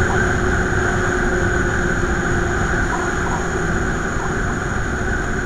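Wind rush and road noise on a camera mounted on a moving vehicle: a steady, loud low rumble with the vehicle running along at road speed.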